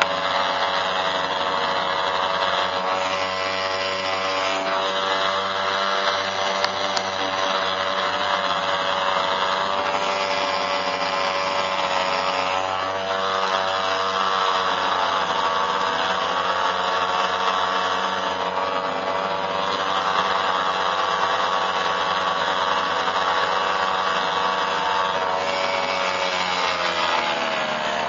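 Twin Gamefisher air-cooled two-stroke outboard motors running steadily under way, their pitch drifting gently up and down.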